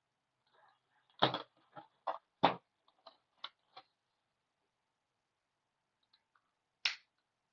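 Sharp plastic clicks and small knocks from handling and opening a key fob during a battery change: a quick run of about eight clicks, then a single click near the end.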